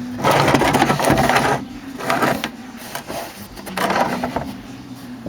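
An oil drain pan being dragged and scraped across the ground into position under the car's oil pan, in three bouts of scraping: a long one first, then two shorter ones.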